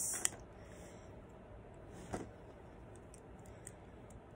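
Faint clicks of small plastic Lego pieces being handled and pressed together, with the clearest click about two seconds in.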